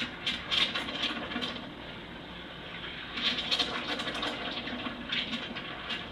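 Steam wand steaming milk: a steady hiss broken by loud spurts, about a second in, again around three seconds in and once more near the end.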